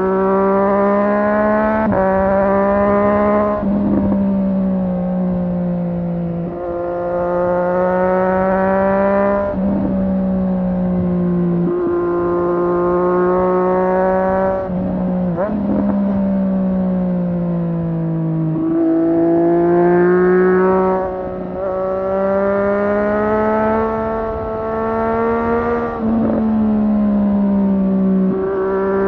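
Triumph Street Triple 765 R's inline three-cylinder engine pulling hard under acceleration, its pitch climbing over a few seconds and then dropping back at each gear change, about eight times in a row.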